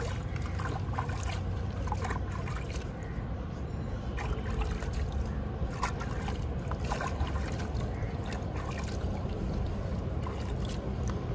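River water splashing and trickling as a Labrador puppy is bathed, with a few short splashes over a steady low rumble.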